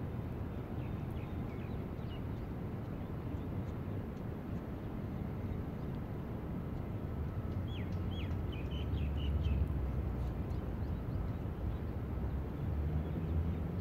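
Outdoor ambience: a steady low rumble that swells slightly around the middle, with a short run of bird chirps about eight seconds in.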